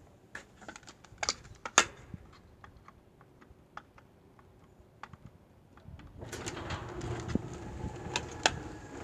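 Several light, irregular clicks and taps. About six seconds in, the Genie 7055D garage door opener starts and the door begins running up with a steady, quiet mechanical hum.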